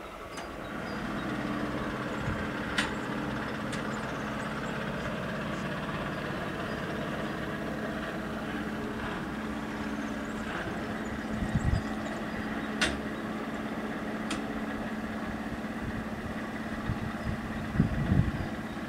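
Electric barrier mechanisms of a level crossing running steadily as they raise the two booms, with a few sharp clicks along the way and knocks near the end as the booms reach upright.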